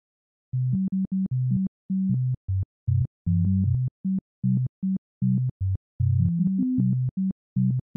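Synthesizer intro music: a line of short, separate low notes with gaps between them, starting about half a second in.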